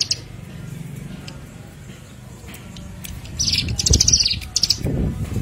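Small songbird giving rapid, high-pitched chattering trills in two bursts beginning about three and a half seconds in, over a low steady rumble.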